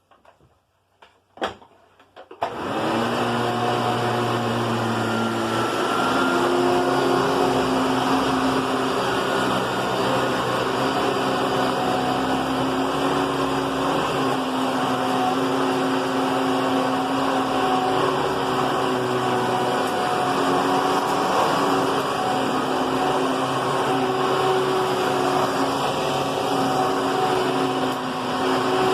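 Hoover Twin Chamber bagless upright vacuum cleaner switched on: a few clicks, then the motor starts a couple of seconds in and runs steadily. A deeper hum in the first few seconds of running drops away.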